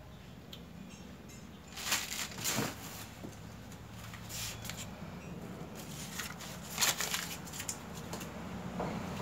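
Plastic parts packets and packaging being handled on a wooden table: irregular crinkling rustles with a few light knocks, loudest about two seconds in and again near seven seconds.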